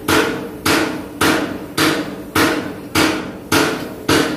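Hammer striking metal in steady, evenly spaced blows, a little under two a second, about eight in all, each leaving a short metallic ring.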